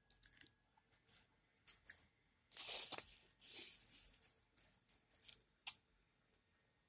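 Plastic shampoo sachets crinkling and rustling as they are handled, in short scattered bursts with two longer stretches about three and four seconds in, and a sharp click near the end.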